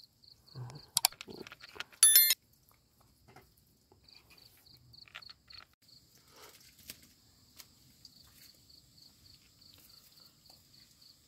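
Crickets chirping in an even, high-pitched pulse, about four chirps a second. About two seconds in, a brief high-pitched ringing clink is the loudest sound, with a couple of sharp clicks just before it.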